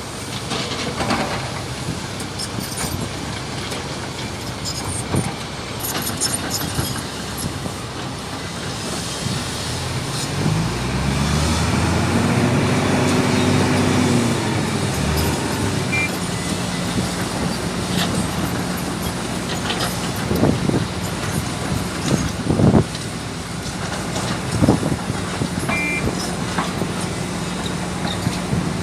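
Heavy diesel excavator engine running, revving up under load about ten seconds in and settling back a few seconds later. Irregular heavy clanks and knocks of rock and steel sound over the engine.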